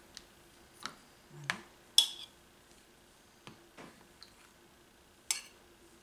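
A metal spoon digging into set yogurt and tapping against the tub and a ceramic saucer: a few scattered light clicks and clinks, the sharpest about two seconds in and another near the end.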